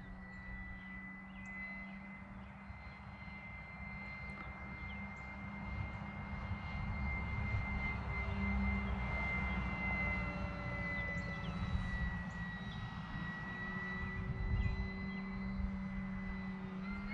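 Electric motor and propeller of a Flex Innovations RV8 G2 60E radio-controlled plane in flight: a steady high whine that grows louder about halfway through as the plane passes closer, over a low rumble.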